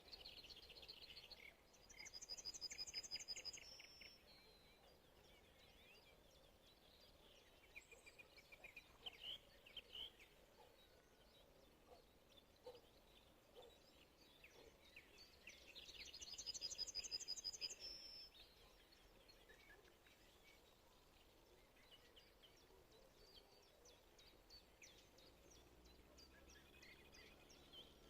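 Birds singing faintly over a quiet background. One bird twice gives a loud trilled phrase about two seconds long, roughly fourteen seconds apart, with scattered short chirps from other birds in between.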